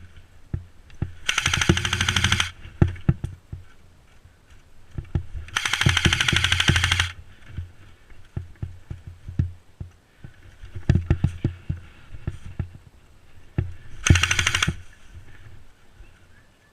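Airsoft rifle firing on full auto in three bursts of rapid shots: one of about a second, a longer one of about a second and a half, and a short one near the end. Scattered single knocks fall between the bursts.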